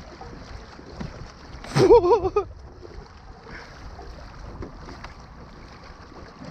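Water slapping against a plastic kayak hull, with wind on the microphone. About two seconds in there is one short, loud call whose pitch wavers up and down.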